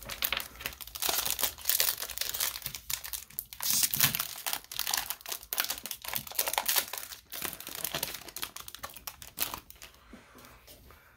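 A 2021 Topps Update baseball card pack wrapper being torn open and crinkled by hand: a dense run of irregular crackles and rustles that dies down about nine or ten seconds in, as the cards are slid out.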